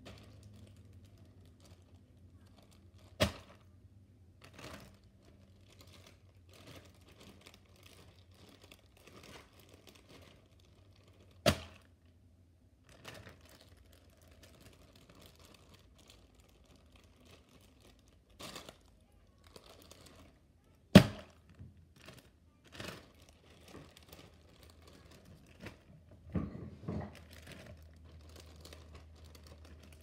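A clear zip-top plastic bag being handled and squeezed close to the microphone: soft scattered crinkles and rustles, with three sharp, loud clicks spread through and a few knocks near the end.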